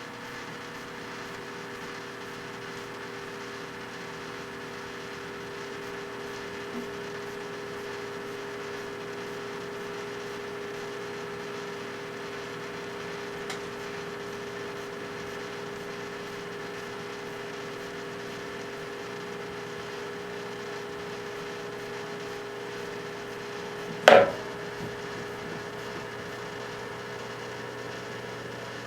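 Microwave oven running with a steady hum, with a couple of faint ticks. About three-quarters of the way through, one sudden loud bang: a bottle of Purell hand sanitizer heating inside bursts and blows the oven door open.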